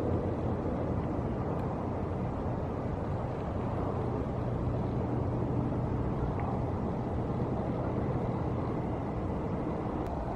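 Steady low outdoor rumble with a faint constant hum underneath, unchanging throughout with no distinct events.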